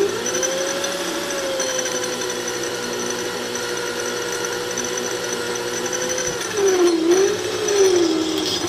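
Hand drill with an M35 cobalt bit running under load as it cuts through hardened leaf-spring steel, a steady motor whine. Near the end the pitch dips twice as the drill slows under load, just before the bit breaks through.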